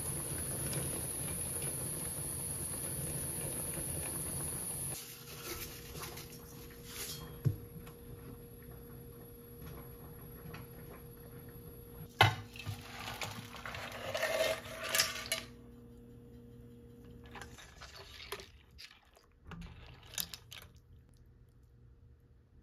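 Broth at a rolling boil in an aluminium saucepan, a steady bubbling hiss that stops about five seconds in. After that come scattered clinks and knocks of dishes and utensils, the sharpest about halfway through.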